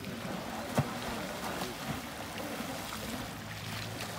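An elephant splashing in a pool: water sloshing and spraying, with one sharp knock a little under a second in.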